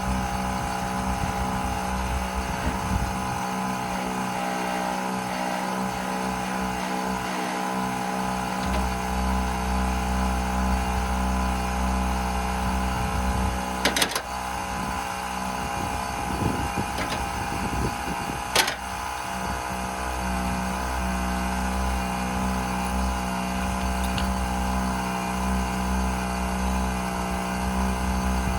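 Bauer cordless air compressor's motor and pump running steadily, a constant pitched drone. Two sharp clicks cut through it about halfway through and again a few seconds later.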